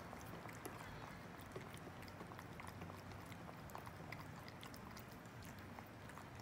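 Two domestic cats eating from their bowls: faint, quick smacking chews, a rapid scatter of small clicks all through.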